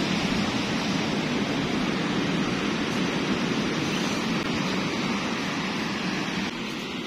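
Steady rushing noise of ocean surf, dropping slightly in level near the end.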